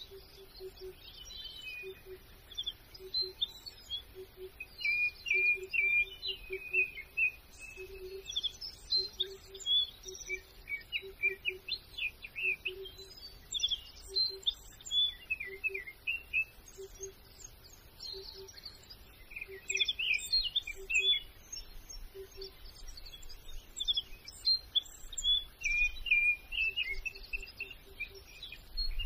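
Songbirds chirping and twittering in a busy run of short calls, over a low, evenly repeated pip a few times a second that comes and goes.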